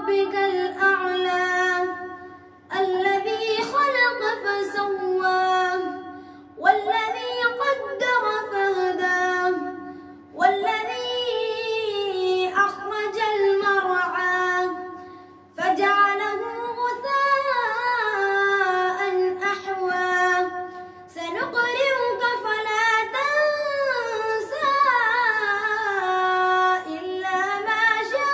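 A boy's voice chanting Quran recitation from memory in the melodic tilawah style. Long held phrases with gliding pitch, separated by short breaks for breath.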